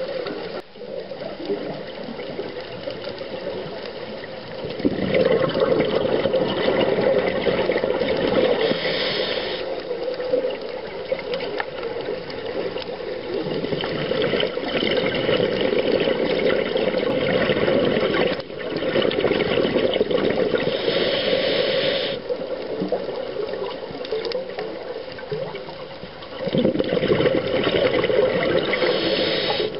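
Water rushing and bubbling, recorded underwater, swelling louder and falling back every few seconds.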